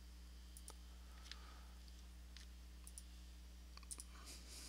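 Faint, scattered computer mouse clicks, a few over several seconds, over a low steady electrical hum.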